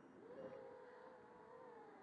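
Faint whine of a racing quadcopter's brushless motors and propellers in flight. It climbs in pitch just after the start, then holds a steady note that sags slightly near the end as the throttle eases.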